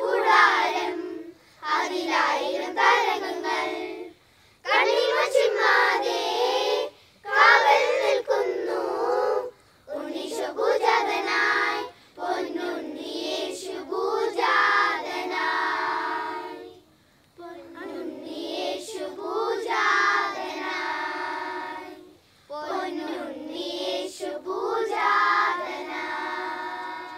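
Children's choir singing a Christmas carol together, with no instruments heard, in short phrases with brief pauses for breath between them.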